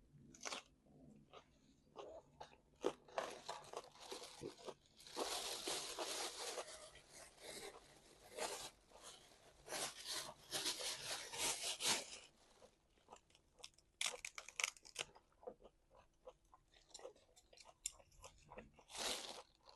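A person chewing and biting into meat: messy eating noises that come in spells of a few seconds with short pauses between.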